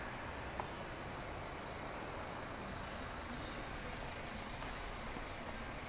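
Steady hum of distant city traffic, with a single short click about half a second in.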